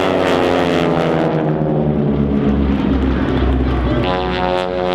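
Several radial-engined North American T-6 Texan aerobatic planes flying at high power, their engine and propeller rasp drifting slowly in pitch, with a deep rumble building midway and a new set of engine tones coming in near the end.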